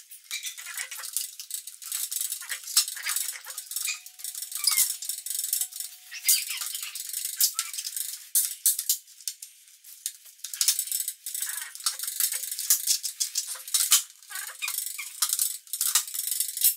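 Clear plastic visor being handled and fitted onto a GLX motorcycle helmet: irregular plastic clicks, taps and scraping as it is worked into the helmet's side pivot mechanisms.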